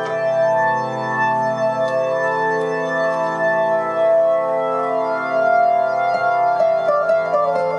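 Organ-toned electronic keyboard music: held chords, then a quick run of notes stepping downward near the end.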